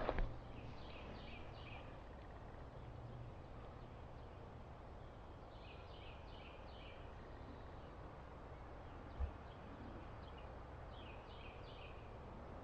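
Faint bird calls: a quick series of three or four descending notes, repeated three times about five seconds apart, over steady background noise. A sharp knock comes at the very start and a soft low thump about nine seconds in.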